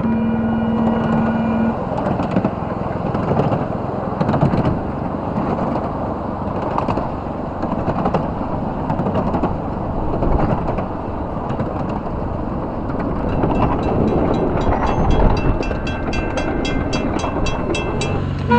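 A ride-on miniature train's cars rumbling and rattling as they roll along the track. A horn sounds one steady note for just under two seconds at the start, and a rapid run of ringing clicks comes in during the last few seconds.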